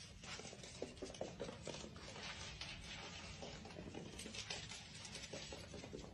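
Faint, irregular patter of small paws and claws tapping and scratching on a hardwood floor as a young pet plays with a sock.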